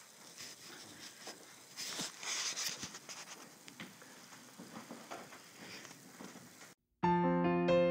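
Faint crackly hiss with scattered small clicks, cut off by a moment of dead silence; then soft piano music begins near the end, a few held notes.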